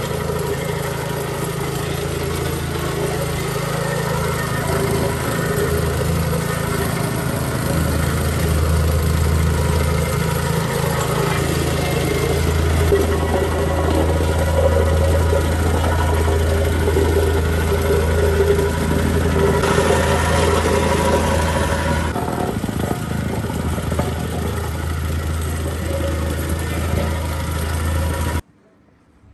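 Engine-driven vibrating plate compactor running steadily as it is walked over a crushed-stone Type 1 sub base, compacting it before paving. The engine hum and plate rattle hold steady, then cut off suddenly near the end.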